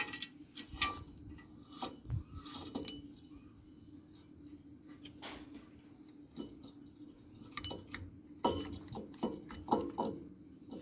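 Metal tools and parts clinking and knocking during a rotavator bearing and oil-seal change. The strikes are irregular: clustered at the start, one knock about halfway, and more in the last few seconds, over a steady low hum.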